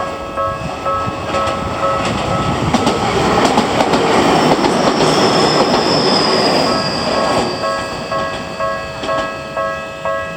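Japanese level-crossing warning bell dinging in a steady repeating rhythm while a Tokyu Tamagawa Line train passes. The passing train's wheels and running gear make a loud rumble in the middle that drowns out the bell, with a thin high wheel squeal slowly falling in pitch.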